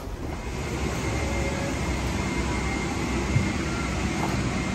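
Steady drone of a parked Boeing 777-300ER's cabin air system during boarding, with a faint steady high whine over it. A single soft thump about three and a half seconds in.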